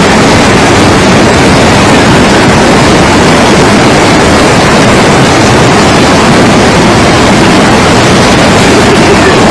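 Loud, steady rushing noise with no breaks or distinct events.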